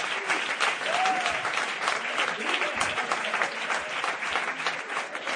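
A crowd applauding steadily with dense, continuous clapping from many hands, with voices cheering through it.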